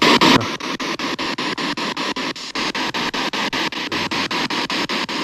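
P-SB7 spirit box sweeping through radio frequencies: a steady hiss of static chopped into rapid, even pulses about nine times a second. Right at the start a louder snatch of radio breaks through, which the ghost hunters take for the word "nie" (no).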